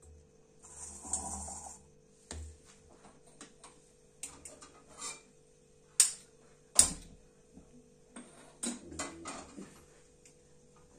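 Kitchen utensils clattering: stainless-steel bowls knocking together, then a non-stick kadhai set down on a gas stove's pan grate with two sharp clanks about six and seven seconds in. Lighter knocks and clicks come in between.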